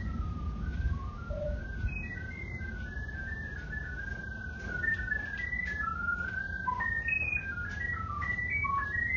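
A person whistling a tune: one clear note moving from pitch to pitch without a break, over a low steady rumble.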